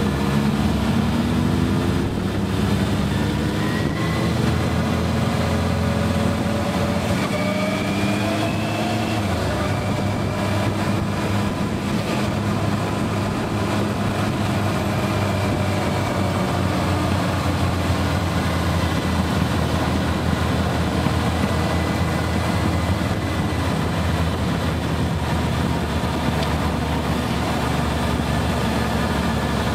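Motorcycle engine heard from the rider's seat while riding. It rises in pitch twice in the first ten seconds, then runs steadily over a constant rush of noise.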